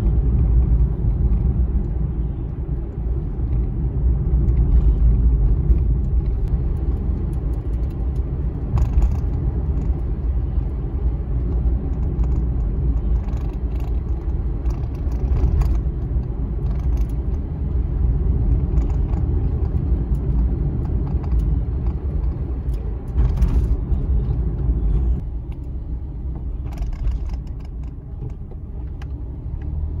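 Inside a moving car's cabin: steady low rumble of the engine and tyres on the road while driving, with a few faint light knocks. The rumble eases slightly near the end.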